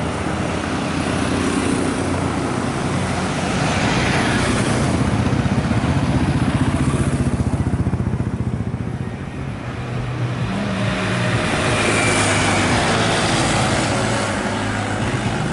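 Road traffic, mainly motorcycles, riding past with engines and tyres humming; the sound swells twice as vehicles go by, about four seconds in and again past the eleven-second mark.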